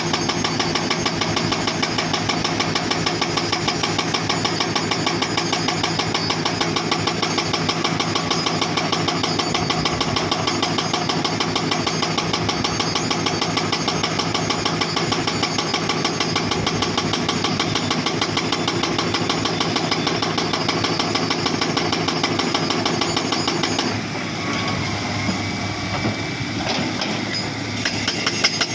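Hydraulic breaker on a Hitachi Zaxis 240 excavator hammering rock in a rapid, even run of blows over the running engine. About 24 s in the hammering stops and only the engine is heard, then the blows start again near the end.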